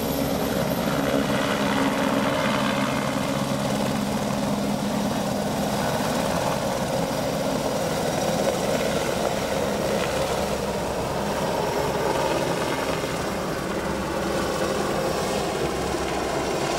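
Eurocopter Écureuil-family light sightseeing helicopter lifting off and flying away, its turbine and rotor blades running steadily.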